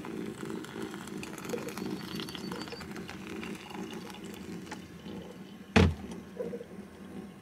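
Hot water poured from a kettle onto ground coffee in a paper pour-over filter, over a steady low hum. A single sharp knock comes almost six seconds in.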